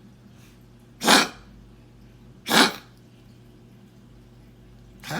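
Small dog coughing, three short coughs about a second and a half apart, the last near the end: the cough of kennel cough.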